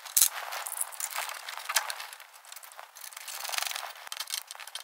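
Irregular small metal clicks and scrapes from hand-fitting a steel mounting bracket with a bolt and spring washer in a car's engine bay. The sharpest click comes about a quarter second in.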